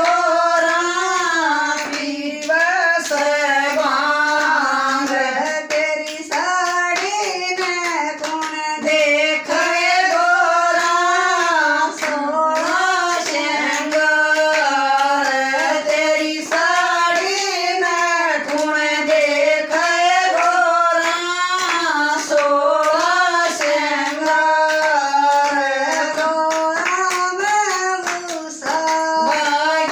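Haryanvi devotional folk song to Shiva (Bhole) sung without a break, with hand claps keeping time throughout.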